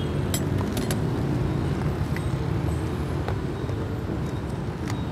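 Steady rumble of street traffic, with a few short light clicks from handling things close by, scattered through it.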